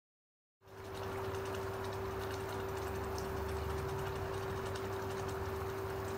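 Thick tikka masala gravy simmering in a frying pan, with faint bubble pops over a steady hum, starting about half a second in.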